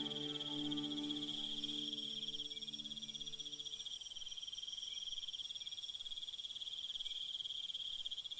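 Crickets trilling in a steady, finely pulsing high chorus. A held low musical chord sounds under them and ends about four seconds in.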